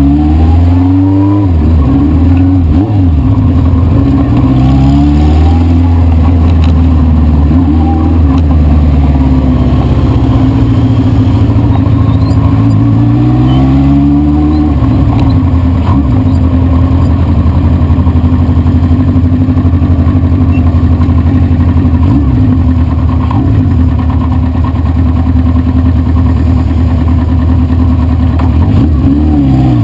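1973 Honda CB500 Four's air-cooled inline-four engine running under way, its note falling and climbing again several times as the revs change, with steadier stretches between.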